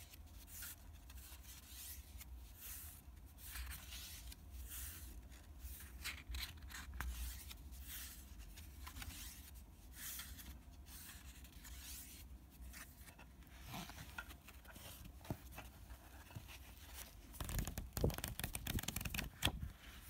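Sketchbook pages being handled and turned: dry paper rustling and brushing in short strokes, with a louder flurry of rustling near the end.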